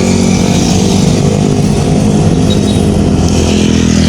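A vehicle engine running steadily at an even pitch, with a noisy hiss on top.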